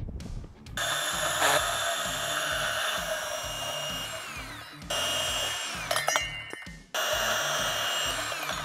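Portable band saw cutting through a metal fence post at the marked cut line. It starts about a second in, then twice winds down with falling pitch and starts again, with a few metal clicks around six seconds. Background music with a steady low beat runs underneath.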